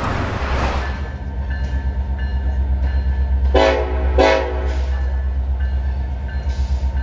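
Union Pacific diesel freight locomotive approaching with a deep, evenly pulsing engine rumble, and its air horn sounding two short blasts about three and a half seconds in. A brief whoosh opens the sound.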